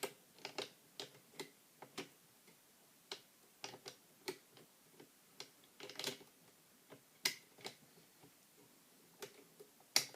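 Lock pick and tension wrench working the pin tumblers of a mortise lock cylinder: faint, irregular metallic clicks as pins bind, set and drop back out.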